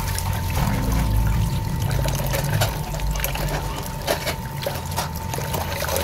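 Tap water pouring and splashing into a plastic basin of water while hands rub and rinse small fish, with scattered small knocks and splashes.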